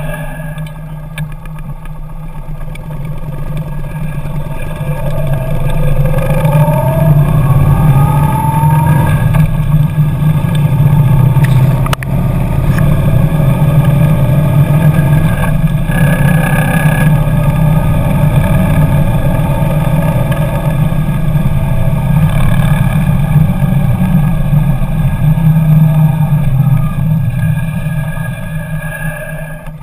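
Kawasaki Nomad motorcycle's V-twin engine running under way, with road and wind noise. The engine note rises through a gear about a quarter of the way in, then holds steady.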